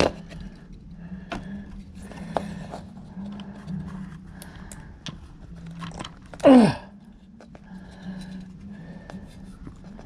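Hard plastic clicks and scrapes as a refrigerator's replacement overload relay and start capacitor are pushed and slid together by hand, with heavy breathing between. About six and a half seconds in comes one loud, short sound that sweeps down in pitch.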